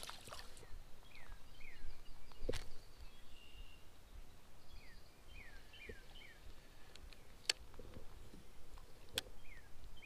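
A songbird giving short, falling chirps, a pair early, a quick cluster of four or five about five to six seconds in, and one more near the end, over faint outdoor background. Three sharp clicks stand out, about two and a half, seven and a half and nine seconds in.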